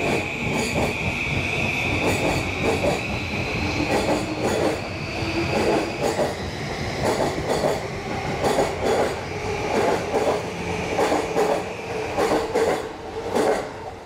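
JR East E235 series electric train accelerating away from the platform. A high electric whine rises in pitch, with a steady clacking of wheels over rail joints that comes quicker as the train gathers speed.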